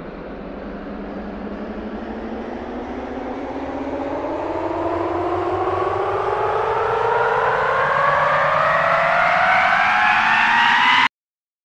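A rising suspense riser: a droning, pitched tone that glides steadily upward and grows louder, then cuts off abruptly near the end.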